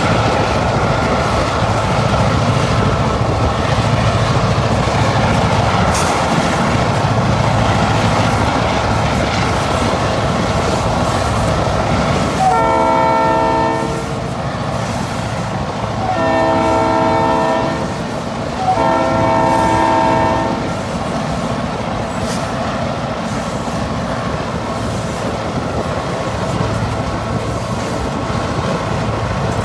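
Central Oregon & Pacific freight train running with a steady rumble, heard while pacing alongside it. About halfway through, the diesel locomotive's horn sounds three blasts, the last two close together.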